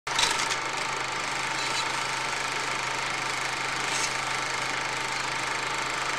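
A steady mechanical running noise with a constant low hum and a faint clatter, unchanging throughout.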